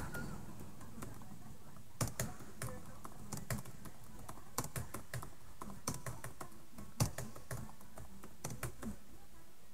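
Faint typing on a computer keyboard: sharp key clicks in short, irregular clusters with brief pauses, starting about two seconds in.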